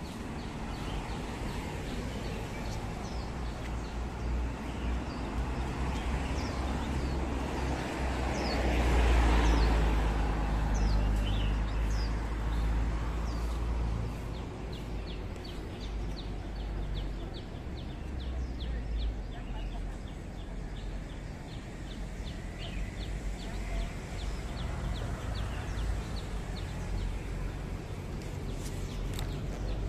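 Street ambience: a steady low traffic rumble that swells as a vehicle passes about nine seconds in, with birds chirping over it. A fast, even series of short high chirps runs through the second half.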